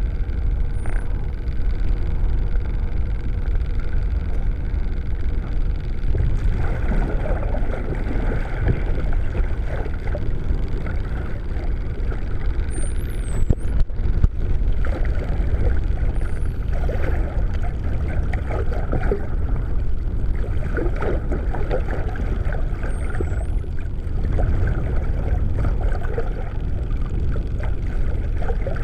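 Underwater sound: a steady low rush of water noise, with a few brief high whistles from dolphins that rise and fall. The clearest whistle comes about 13 seconds in.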